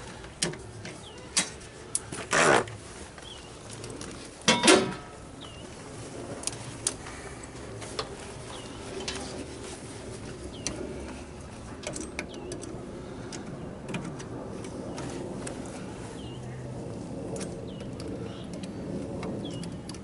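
Metal knocks and clunks as the electric meter and its socket are handled, loudest twice in the first five seconds, over a low steady hum, with short high bird chirps scattered through the rest.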